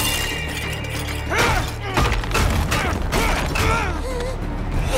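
Film soundtrack: dramatic music under a sci-fi energy effect as a crystal-powered bomb charges up, with a crackling burst at the start and then a run of short warbling glides.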